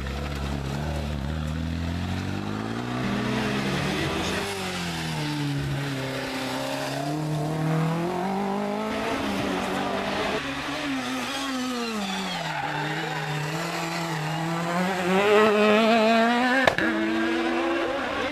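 Rally cars driven flat out through a hairpin, engines revving hard and falling back as gears change, with some tyre squeal. The loudest run comes near the end, followed by a single sharp crack.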